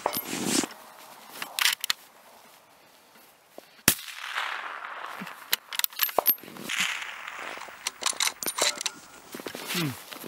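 A single bolt-action rifle shot about four seconds in, its report fading away afterwards, followed by scattered metallic clicks as the bolt is worked.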